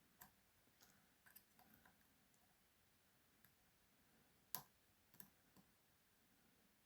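Faint, irregular little clicks of a lock pick working the pins inside a pin-tumbler challenge lock, with one sharper click about four and a half seconds in.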